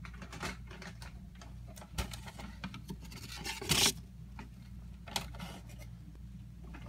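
Crinkly rustling of a bag being handled and shaken, loudest about three and a half seconds in, as white mice are tipped out onto loose bedding, with small scratches and taps of the mice landing and scrabbling.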